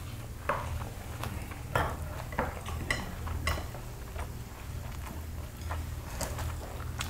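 Chopsticks and tableware clinking and tapping against dishes at a meal table, in scattered separate clicks over a steady low hum.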